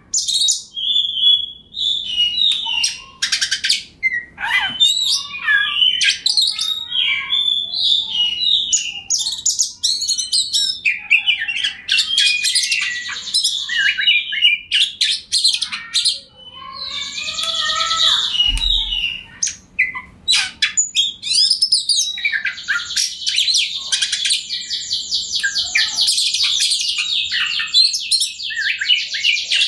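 Oriental magpie-robin (kacer) in full song: a long, varied run of whistled phrases and fast chattering trills, turning into a dense, rapid stutter of high notes for the last several seconds.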